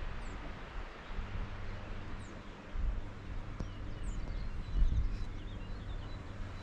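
Wind noise rumbling on the microphone, in gusts about three and five seconds in. Faint, short, high bird chirps sound now and then through it.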